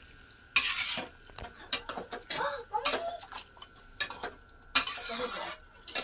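A metal ladle stirring and scraping mutton pieces around a metal cooking pot, in irregular rushes of scraping with sharp clinks of metal on metal.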